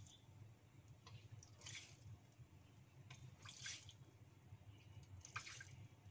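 Excess cooking oil being scooped out of a wok: three faint, short scraping, liquid sounds about two seconds apart over a low steady hum.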